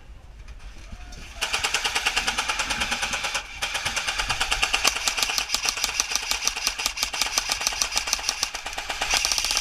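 Airsoft electric gun firing full-auto in long, rapid bursts, starting about a second and a half in, with a brief break partway through.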